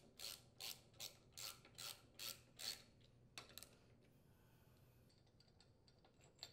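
Faint, evenly paced clicking of a ratchet wrench, about two or three clicks a second, as it turns a bolt on a flywheel puller; the clicking stops about three seconds in after a couple of softer clicks.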